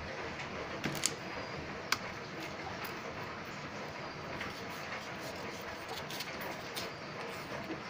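Knife cutting and peeling the thick skin off a cassava root by hand, with a few sharp clicks and taps against a stainless steel sink about one and two seconds in, over a steady background hiss.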